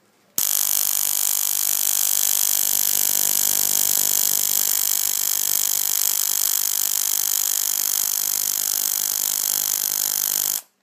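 Relay ignition coil driver running: a steady electrical buzz with a strong hiss, as the relay chatters and the ignition coil throws high-voltage arcs. It starts about half a second in and cuts off abruptly near the end. It is fed through a weak diode that gives it little power.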